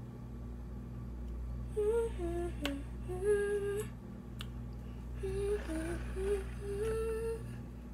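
A girl humming a tune to herself in two short phrases, the notes stepping up and down, with a couple of sharp clicks of kitchen utensils, over a steady low hum.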